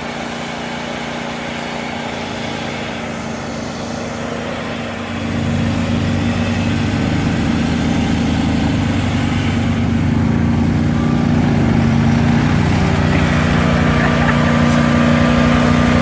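Rural King RK24 subcompact tractor's diesel engine running steadily, getting louder about five seconds in.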